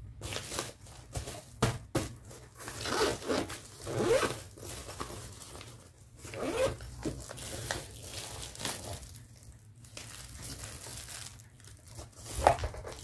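Zipper on a small pink doll pouch being pulled in several strokes, with rustling and a few sharp clicks as the pouch is handled; the loudest click comes near the end.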